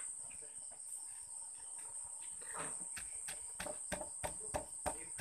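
Crickets trilling steadily in one continuous high note. From about three seconds in, a run of sharp knocks about four a second joins it.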